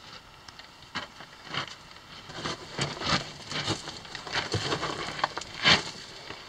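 Hands and shoes scuffing and scraping on loose rock and gravel as a person crawls up a steep, narrow mine passage. The scrapes are irregular, with small stones shifting, and a louder scrape comes near the end.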